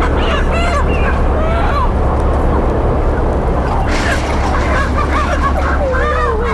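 Loose domestic hens clucking and squawking in short bursts, a cluster early and another from about four seconds in, over a steady low rumble.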